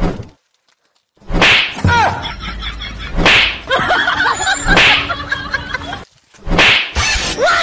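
Four hard open-hand slaps, the first about a second in and the rest every one and a half to two seconds, each a sharp crack.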